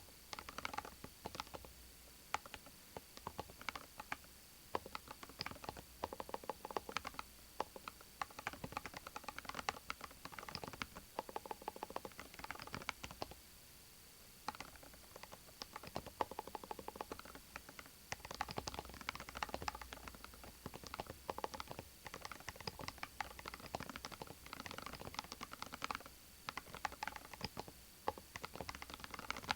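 Cerakey Maris 60 HE, a 60% Hall-effect keyboard, being typed on steadily in fast runs of key clicks, with a couple of brief pauses.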